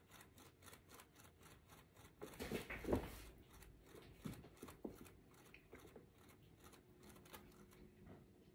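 Faint, even ticking from a turntable spinning a wet acrylic-pour panel as it coasts down, fading as it slows. A few louder knocks about two to three seconds in.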